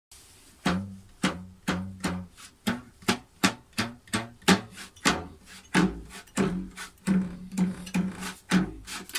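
Marimbula (bass kalimba) prototype: a scrap-metal tongue over a wooden resonator box, plucked by hand again and again, about two plucks a second. Each pluck gives a sharp click and then a short, low tone of much the same pitch that dies away quickly.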